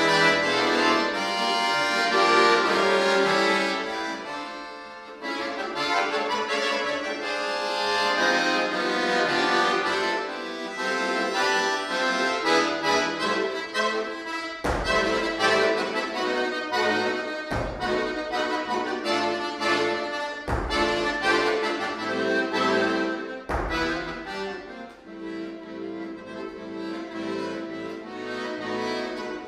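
Chromatic button accordion (bayan) played solo, a continuous run of chords and melody. In the second half a few sharp accented strokes land about every three seconds.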